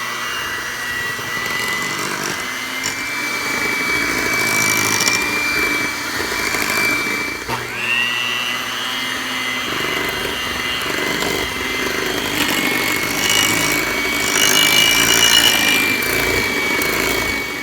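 Electric mixer beating cake batter, its motor running with a steady high whine. About seven and a half seconds in it stops briefly and spins up again, and it shuts off at the end.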